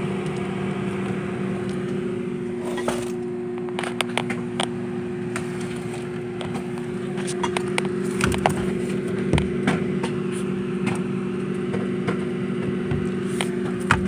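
Steady low electrical hum from an appliance, with scattered knocks and scrapes as the phone handles against a microwave's casing, a cluster about three to five seconds in and more around eight to ten seconds.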